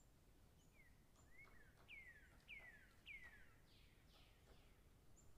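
Faint bird calls: a quick run of four or five downward-sliding notes in the middle, with a few tiny high peeps before and after.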